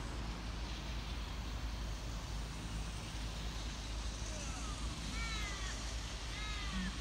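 Steady outdoor background rumble and hiss, with two short calls about five and six and a half seconds in, each rising then falling in pitch.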